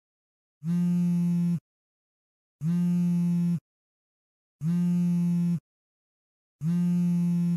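Smartphone buzzing with an incoming call: four steady, low-pitched buzzes, each about a second long, two seconds apart.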